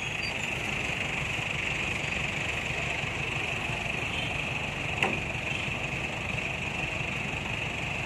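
Mobile crane engines running steadily under load while holding a truck-mounted drilling rig in the air, with a steady high-pitched hiss above the low rumble. One sharp knock about five seconds in.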